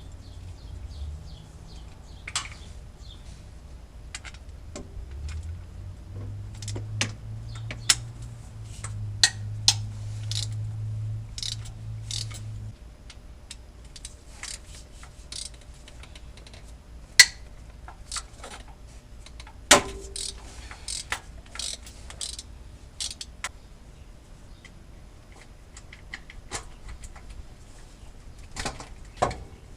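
Hand tools clinking and rattling against metal parts of the engine, a run of scattered sharp metallic clicks and knocks, a few of them loud. A steady low hum runs for several seconds in the first half, then stops.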